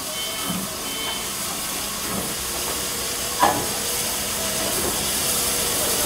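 Steam hissing steadily from the C62-class steam locomotive C62 2, with one sharp knock about three and a half seconds in.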